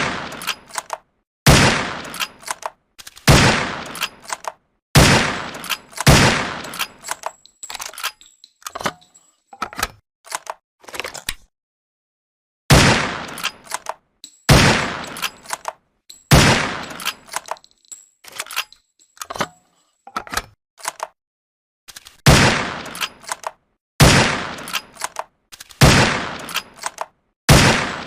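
Rifle sound effect: a steady series of single gunshots, one every second or two, each with a short decaying tail and fainter clicks in between, broken by a pause of a second or so near the middle.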